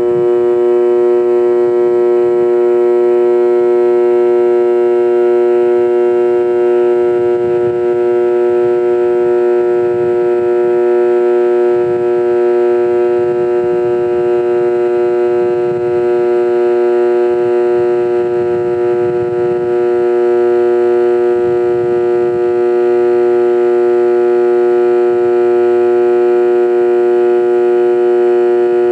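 Sanitaire vacuum cleaner motor running with a steady, unchanging pitched whine, with an uneven low rumble underneath.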